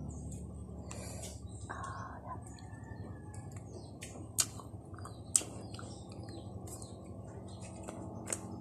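Quiet eating sounds: scattered mouth clicks and smacks as grilled fish is picked apart by hand and chewed, with two sharper clicks around the middle.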